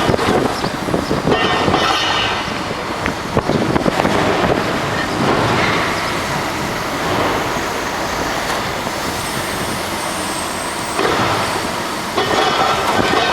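Demolition work: heavy machinery running with dense crunching, knocking and clattering of breaking debris, heaviest in the first few seconds and again near the end.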